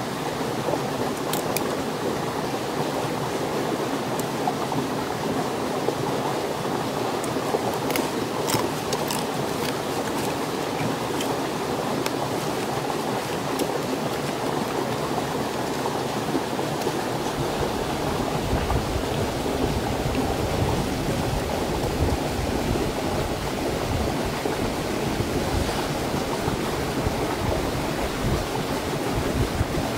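Steady rush of flowing stream water. A few faint sharp clicks in the first ten seconds, and a low rumble joins from about seventeen seconds in.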